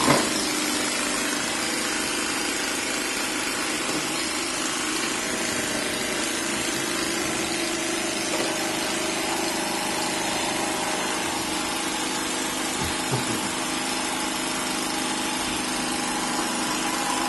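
Model street sweeper running its sweeping mechanism: a loud, steady, even mechanical noise with a faint hum in it.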